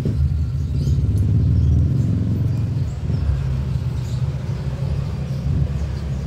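A low, steady mechanical rumble, easing off a little about three seconds in.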